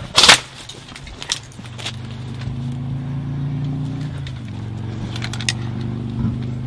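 A loud, short bang just after the start and a few sharp clicks, then a motor vehicle engine running steadily from about two seconds in.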